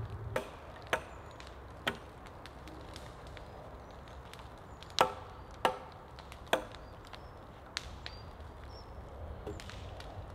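Sharp wooden knocks at irregular intervals: a few early on, then the loudest three in quick succession about five to six and a half seconds in, with fainter ones after.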